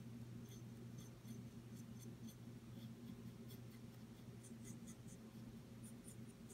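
Near silence: faint, light scratchy ticks of a paintbrush working paint onto a plastic miniature, over a low steady hum.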